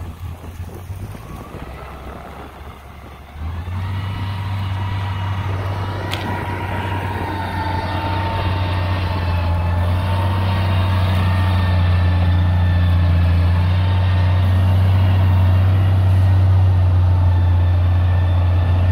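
Komatsu GD625A motor grader's diesel engine running under load while its blade scrapes and pushes soil, a steady low drone with a thin whine above it. It gets suddenly louder about three seconds in and then stays loud.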